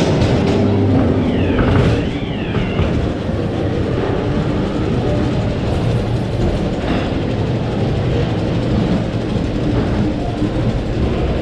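Ghost train ride car running along its track with a steady low rumble and rattle. A brief high whine falls and rises in pitch between about one and three seconds in.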